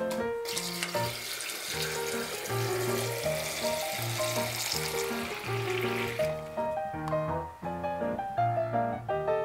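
Water running from a kitchen tap into a glass, stopping about six seconds in, over background music.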